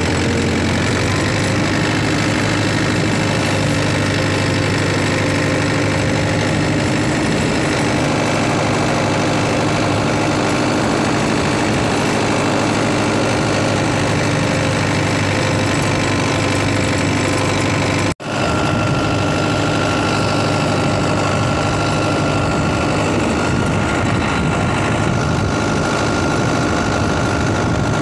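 Tractor engine idling steadily, the sound cutting out for an instant about 18 seconds in and starting again at the same pitch.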